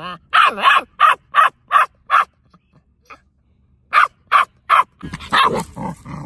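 Seven-week-old puppy giving its alert bark on cue during protection imprinting: five quick barks, a pause of about two seconds, then three more and a denser, rougher run of barking near the end.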